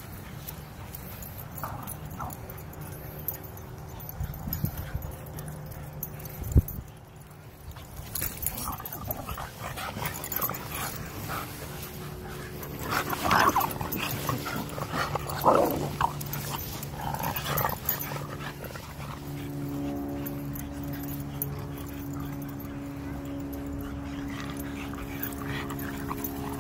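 Dogs playing rough together, with short bursts of dog vocalisations clustered around the middle, over a steady low hum. A single sharp thump about a quarter of the way in.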